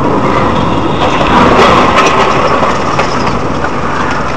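Loud, steady road and engine noise from a car driving on a highway, picked up by a dashcam inside the cabin.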